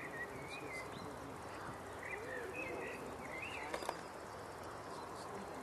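Steady distant rush of an Airbus A321's jet engines at go-around thrust as the airliner climbs away, with birds chirping over it. A couple of sharp clicks come about two-thirds of the way through.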